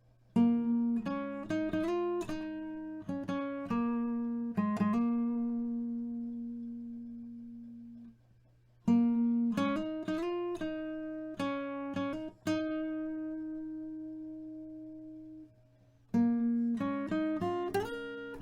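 Background music on a plucked acoustic guitar: three short phrases of picked notes, each ending on a held note that slowly fades before the next phrase begins.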